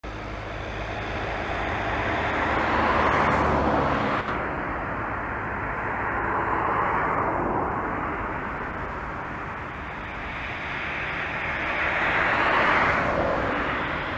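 Single-engine propeller light aircraft on approach to land, its engine drone swelling and fading several times. There is a brief break in the sound about four seconds in.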